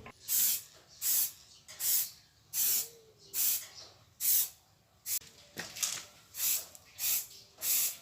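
Spray paint hissing out in about ten short bursts, roughly one a second, as engine parts are repainted.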